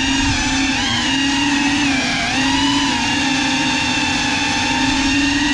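GEPRC Cinelog 35 cinewhoop's brushless motors and ducted propellers whining steadily in flight, the pitch wavering slightly up and down with throttle.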